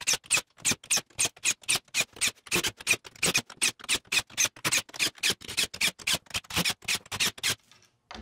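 Cordless impact driver driving screws into a plywood top, in a rapid, even run of short sharp bursts, about five a second, that stops near the end.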